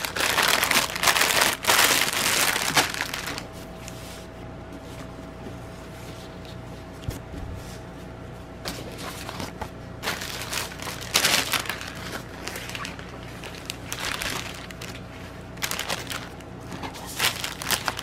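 Clear plastic packaging crinkling and rustling as it is handled, loudest in the first three seconds and again near the end, with quieter scattered crackles between.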